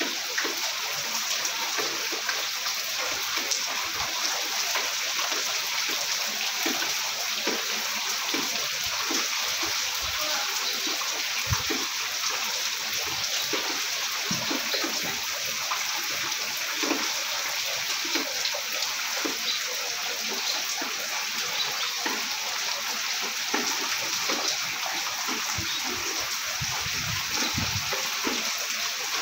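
Very heavy monsoon rain pouring steadily, an even hiss with many short, scattered louder splashes from drops striking close by.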